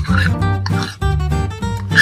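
Background music with plucked acoustic guitar over a steady bass line.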